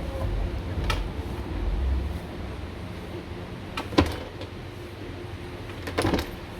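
Clicks and knocks from a car's plastic rear-door trim panel being worked loose. There is a low rumble of handling in the first couple of seconds, one sharp snap about four seconds in, and a short cluster of knocks near the end.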